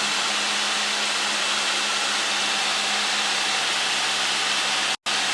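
Light aircraft's engine and propeller running steadily in cruise, heard inside the cockpit as a loud even drone with a low hum. The sound cuts out completely for an instant near the end.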